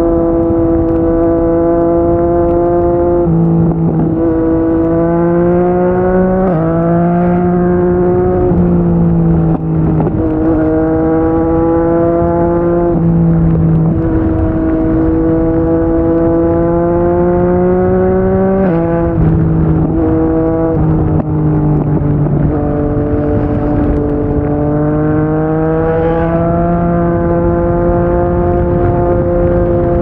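Yamaha MT-09's inline three-cylinder engine through a Yoshimura R55 slip-on exhaust, ridden at moderate revs. The pitch climbs slowly and steps abruptly up or down several times as gears are changed.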